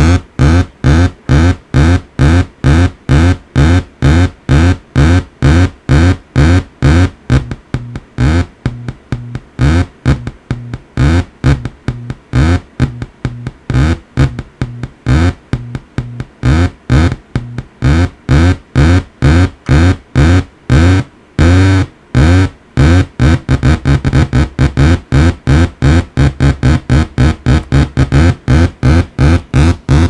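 Homemade tone generator built from two 555 timer chips and a 4093 chip, pulsing in a fast, buzzy rhythm of about three beats a second, each beat sweeping upward in pitch. The rhythm breaks up briefly about a third of the way in, and the pulses come faster over the last quarter.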